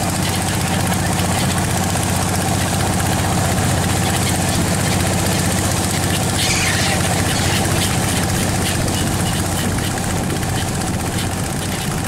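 Engine running steadily with a low, even hum.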